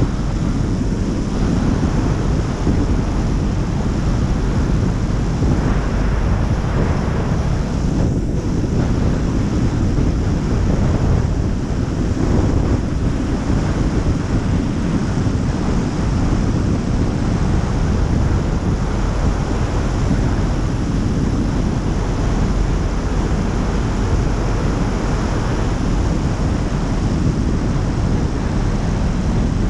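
Steady, loud rush of airflow buffeting the microphones of a camera mounted on the outside of a Pipistrel Virus SW 100 light aircraft in flight, on its descent to land.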